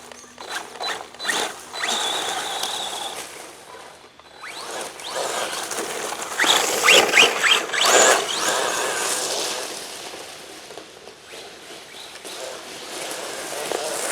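Arrma Big Rock 3S BLX RC truck running on wheels wrapped in chainsaw chain: a high electric-motor whine as the chain tyres tear into the ground and throw dirt. The scraping and clattering is loudest in the middle, in a rapid run of sharp rattles.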